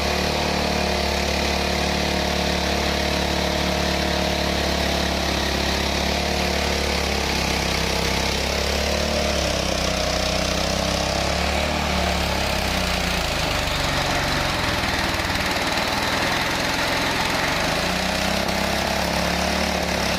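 Mahkota Type 820 PRO rice milling machine running under its driving engine: a loud, steady mechanical drone with engine hum, the engine's pitch shifting slightly about two-thirds of the way in.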